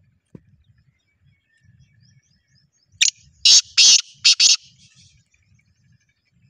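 Black francolin calling once, about three seconds in: a loud, harsh, grating call of about five rasping notes over a second and a half. Faint chirps of other birds before it.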